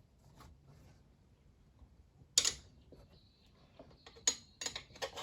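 Tyre levers knocking and clanking against a motorcycle wheel rim while a tubed tyre is levered off the rim: one sharp clank about halfway through, then three quicker knocks near the end.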